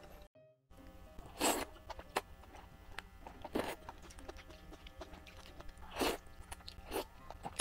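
Close-miked noodle slurping and chewing: four short, wet slurps about a second or two apart, over soft background music. The sound cuts out completely for a moment near the start.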